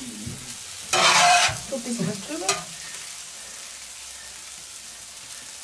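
Noodles, vegetables and shrimp sizzling as they are stir-fried on a hot black grill pan, with a metal spatula scraping and tossing the food. About a second in there is a loud burst of sizzling and scraping, then a sharp click. After that it settles to a steadier, quieter sizzle.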